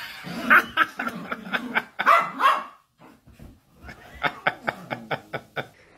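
Small dogs barking and yapping: a run of barks, a short pause about halfway, then a quick string of short high yaps, about five a second.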